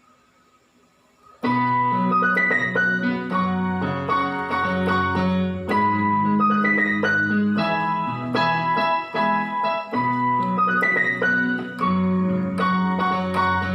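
Roland XPS-10 keyboard playing a ringtone tune as melody over chords and a bass line, starting suddenly about a second and a half in. A short phrase repeats about every four seconds.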